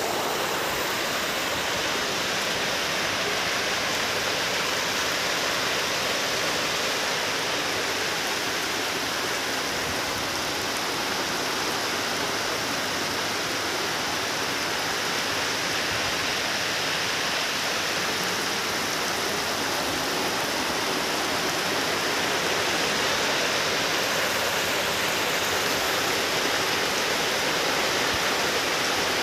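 Heavy rain falling steadily on fish-pond water, a dense, even hiss of drops striking the surface.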